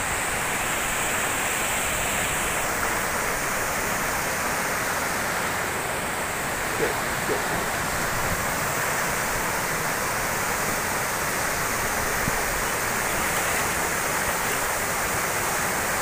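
Steady, unbroken rush of a waterfall and the shallow rocky stream running below it.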